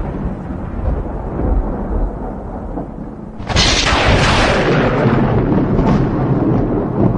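Thunder sound effect: a low rolling rumble dies away, then a sharp thunderclap cracks about three and a half seconds in and rolls on as a long rumble.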